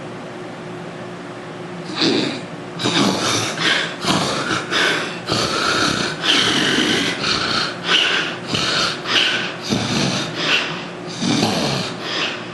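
A man snoring in his sleep: a rapid, irregular run of rough snores and snorts that starts about two seconds in and stops near the end, over a steady background hum. He links the snoring to nasal obstruction from weight gain.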